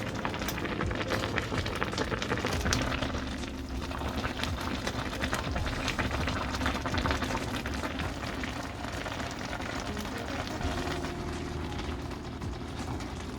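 Food cooking on the stove, bubbling and crackling steadily.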